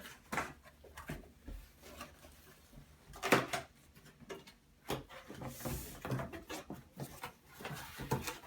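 Cardboard box being opened and unpacked by hand: scattered knocks, scrapes and rustles of cardboard, with a sharper knock about three seconds in and a short rustle near six seconds.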